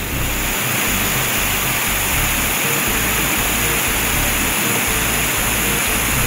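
Cartoon sound effect of a fire hose spraying water: a steady rushing hiss, over background music with a repeating bass beat.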